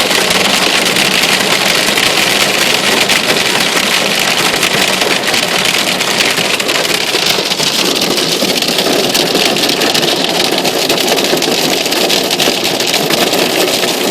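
Hail and rain pelting down: a loud, dense, steady hiss of countless small impacts.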